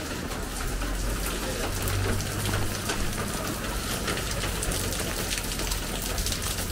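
Steady rain falling, many small drop hits ticking over an even hiss, with a low rumble underneath.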